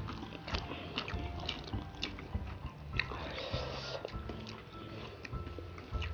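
Close-up eating sounds: chewing and smacking, with fingers mixing rice on steel plates, heard as a scatter of small clicks and soft thumps.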